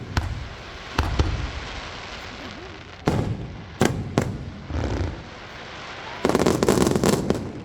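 Fireworks display: single bangs of shells bursting every second or few, then, about six seconds in, a dense crackling salvo of many quick reports lasting just over a second.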